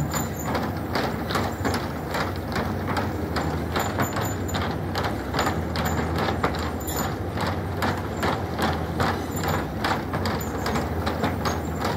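Horse-powered treadmill in motion: a horse's hooves clomping on the moving wooden slats with a rapid, uneven clatter of the treadmill, over a steady low hum.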